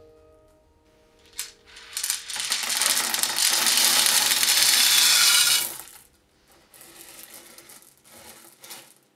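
Pie weights poured from a plate into a pastry-lined pie tin: a dense rattling clatter of hard little balls for about four seconds. It is followed by softer scattered clicking as hands spread them evenly over the pastry.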